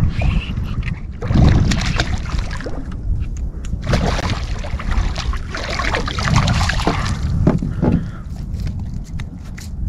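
Hooked small redfish thrashing and splashing at the water's surface beside the boat while being reeled in, in two bouts, over steady wind rumble on the microphone.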